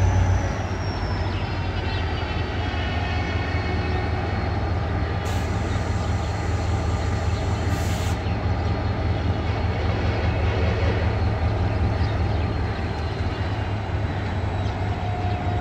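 Diesel-electric locomotive (Pakistan Railways HGMU-30) working under power as it pulls a passenger train away from the station: a steady low engine drone, with a high whine that slides down in pitch over the first two seconds.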